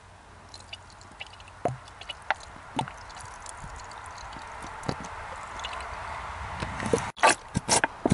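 Italian salad dressing gurgling and dripping as it drains from an upturned plastic bottle into an engine's oil filler neck, with scattered small clicks. Near the end a quick series of louder crackles.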